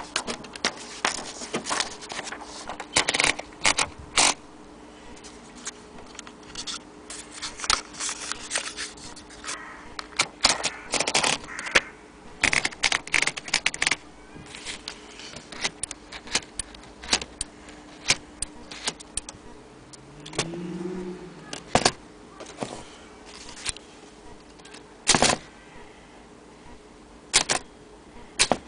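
Vintage Underwood manual typewriter's keys and mechanism clacking: irregular sharp clicks in clusters, busiest in the middle, with pauses between.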